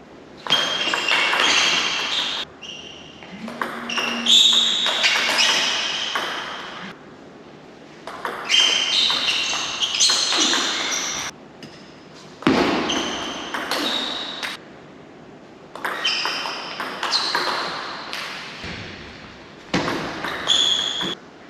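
Table tennis rallies: the ball clicking off paddles and bouncing on the table in quick succession, in about six bursts separated by short pauses between points.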